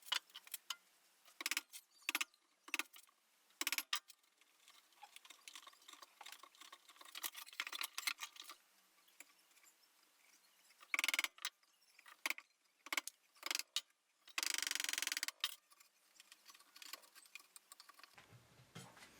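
Faint hand-tool work on wood: a chisel paring and tapping at the corners of a small mitered box, heard as scattered light clicks and taps, with a short scraping rasp about fifteen seconds in.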